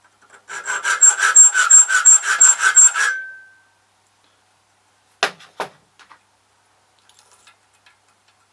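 A file rasping across a key blank as a key is cut by hand: about two and a half seconds of quick, even strokes, roughly five a second, with a ringing tone. About five seconds in come two sharp clicks.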